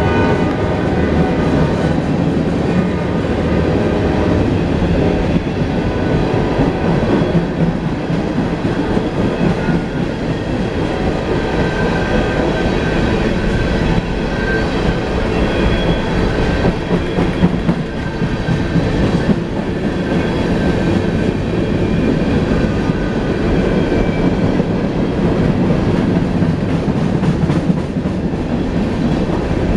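Freight cars of a CSX mixed freight train rolling past close by: a steady loud rumble and clatter of steel wheels on the rails. The locomotives' low engine drone fades out in the first second or so.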